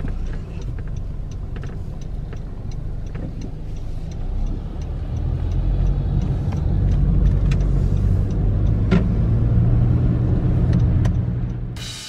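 Road and engine noise heard from inside a moving car on a rain-wet road: a low rumble that grows louder about halfway through and eases off near the end. Faint, evenly spaced ticks sound in the first few seconds.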